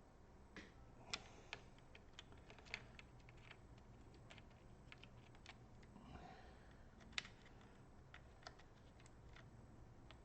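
Scattered light clicks and taps of small laptop parts and tools being handled during reassembly, irregular rather than a steady rhythm, with a brief soft scrape about six seconds in.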